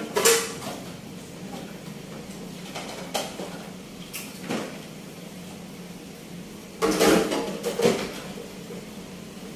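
Dishes and kitchenware clattering and knocking in a few short bursts, the loudest cluster near the end, over a steady low hum.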